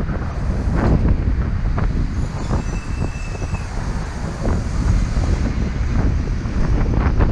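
Car driving slowly along a city street: a steady low rumble of engine and tyres, with wind buffeting the car-mounted camera's microphone and occasional short thumps.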